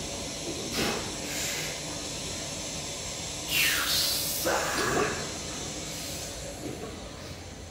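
A weightlifter breathes hard under a loaded barbell. There are light breaths first, then a loud hissing exhale through the teeth about three and a half seconds in as he dips, falling in pitch. A shorter, rougher breath-out follows about a second later.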